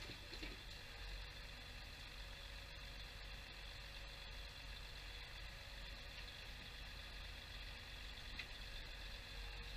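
The grab lorry's diesel engine running steadily and faintly at a distance, keeping a level hum while it powers the loader crane's hydraulics; the hum wavers briefly near the start.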